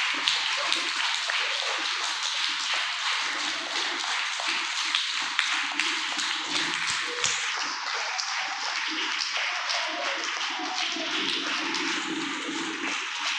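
Audience clapping: a dense patter of many hand claps that thins out about eight seconds in, over a low murmur of voices.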